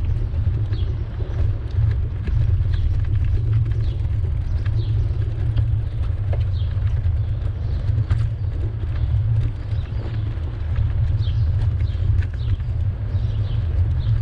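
Steady low rumble of wind and riding vibration on a bicycle-mounted camera's microphone, with scattered faint clicks and brief high falling chirps.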